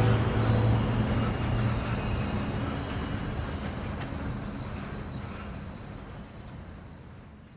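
Diesel-hauled freight train of covered hoppers rolling past and fading away: a low engine drone and wheel-on-rail noise that die away steadily.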